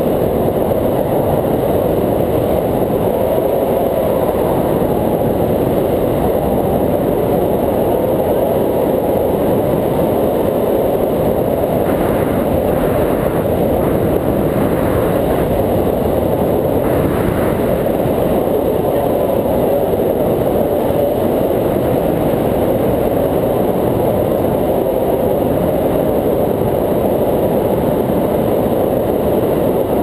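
Steady, loud wind rush buffeting an action camera's microphone in free flight under a tandem paraglider.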